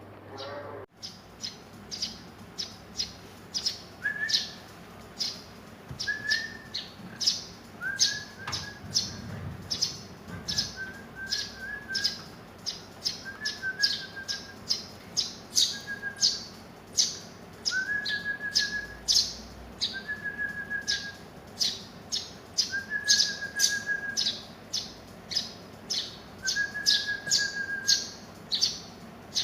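Young Eurasian tree sparrows chirping over and over, about two sharp high chirps a second, mixed with a lower short whistled note every couple of seconds.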